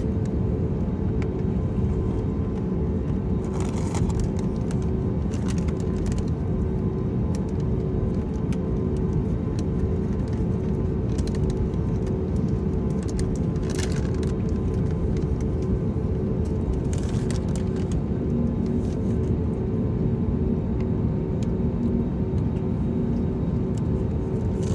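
Airbus A320neo cabin noise while taxiing: a steady low rumble with the engines' even hum, and a few faint clicks here and there.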